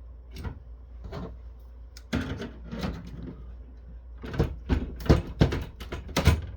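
Knocks and clunks of a switch's circuit board and sheet-metal chassis being pushed and worked to slide the binding board forward, a few at first, then a quick cluster of sharp knocks in the second half.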